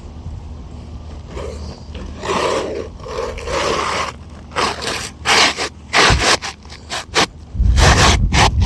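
Asphalt roof shingle scraping and rustling as it is slid back into place under the course above, with a run of sharper scrapes and knocks in the second half and a dull low rumble near the end.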